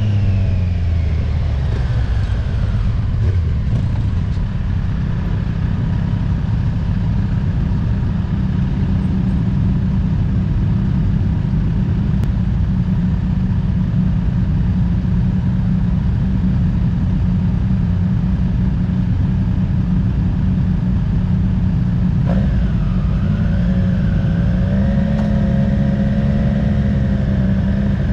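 Triumph Street Triple RS three-cylinder engine running under way, with heavy low wind rush. The engine note falls at the start as the bike slows, holds steady, then rises about 22 seconds in and stays higher as the bike speeds up.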